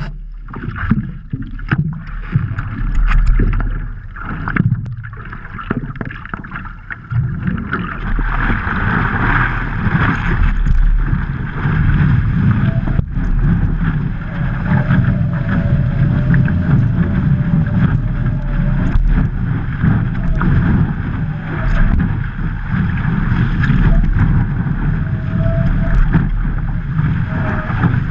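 Water splashing and rushing against a stand-up paddleboard's nose, with wind buffeting the board-mounted camera's microphone. From about eight seconds in it becomes a steady, loud rush as the board rides a breaking wave.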